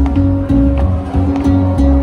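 Jazz trio playing: a gypsy jazz guitar picking notes over a bass line, with sharp attacks about twice a second.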